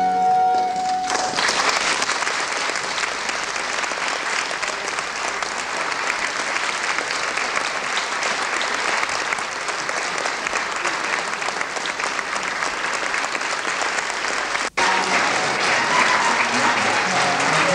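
Audience applauding steadily, a dense patter of many hands clapping, after the string ensemble's final held chord dies away in the first second. The clapping drops out for an instant near the end, then carries on.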